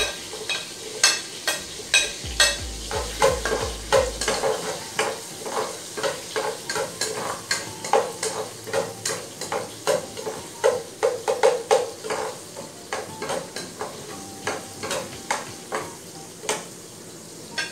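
Spoon stirring chopped garlic in a pot of hot oil and butter, clinking and scraping against the pot over and over, with a steady sizzle of frying underneath. The clinks thin out near the end.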